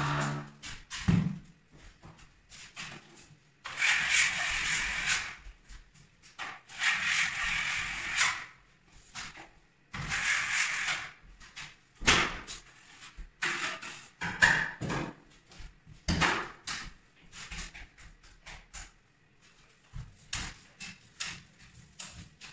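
Facade roller on a telescopic pole, loaded with joint compound, rolled across plasterboard ceiling joints: a wet, scraping hiss in passes of about a second and a half. Scattered knocks and clicks follow as the roller is reloaded at the compound bucket.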